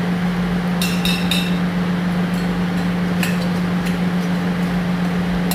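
A metal spoon clinking against a pot a few times, a short cluster about a second in and another about three seconds in, as a spiced tempering is added and stirred into boiled dal and vegetables, over a steady low hum.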